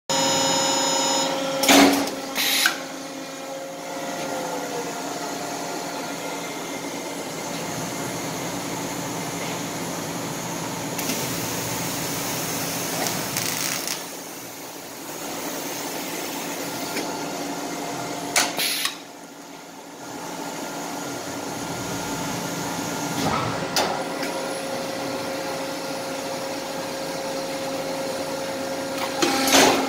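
Viryl LiteTone automated vinyl record press running: a steady machine hum with held tones, broken by a few sharp clunks near the start, a little past halfway and near the end, and a stretch of high hiss in the middle.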